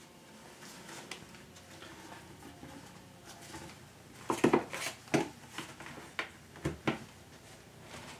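Plastic shower-drain clamping ring knocking and clicking against the drain flange and bolt heads as it is set down over the pan liner. A cluster of sharp knocks comes about halfway through, and a few more follow shortly after.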